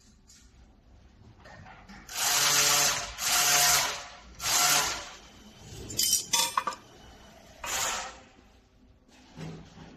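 Handheld 1500 W fiber laser welder firing in four short bursts, each a loud hissing buzz, with a few sharp metallic clinks between the third and fourth bursts.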